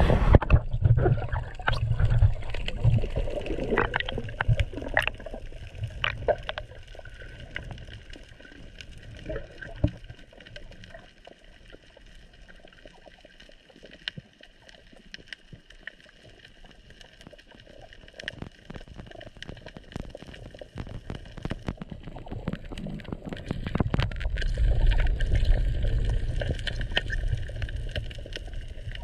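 Muffled underwater sound picked up by a submerged camera on a breath-hold dive: heavy low water rush and sloshing as the diver goes under, a quieter stretch with scattered sharp clicks and crackles, then the low water rush building again about three quarters of the way through as the diver rises toward the surface.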